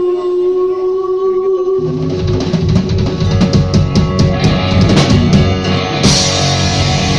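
Rock music. A single long held note gives way, about two seconds in, to a full band with drums and guitar. Near the end it turns brighter as the cymbals wash in.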